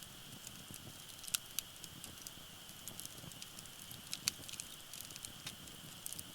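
Wood fire crackling, with scattered sharp pops; the loudest come about a second and a half in and again just after four seconds, over a steady faint high hiss.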